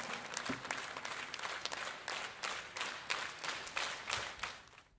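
Crowd applause, many hands clapping, dying away near the end.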